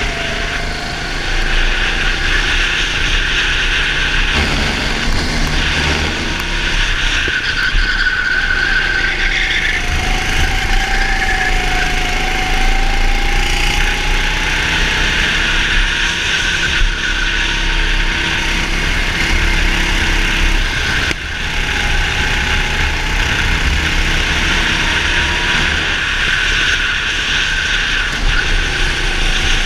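Go-kart engine running at speed on track, its pitch rising and falling as the kart goes through corners and straights, with steady rushing noise over it.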